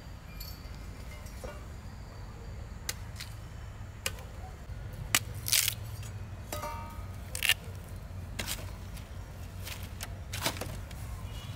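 Irregular sharp knocks and cracks, about seven of them a second or so apart, over a steady low hum.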